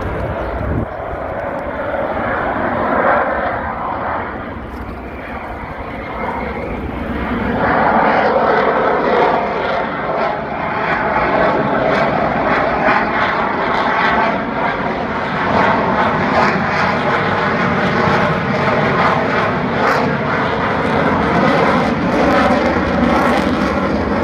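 Aircraft engine noise from a fixed-wing display plane flying past, a steady rushing sound that grows louder about eight seconds in and stays loud.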